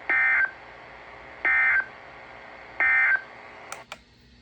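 Emergency Alert System end-of-message signal: three short, buzzy digital data bursts about 1.4 seconds apart, marking the end of the alert. Two clicks follow near the end as the broadcast audio drops away.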